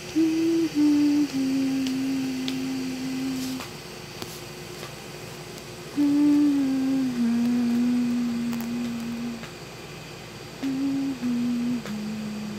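A person humming a slow lullaby to put a child to sleep: three phrases, each falling in three held notes, with short pauses between.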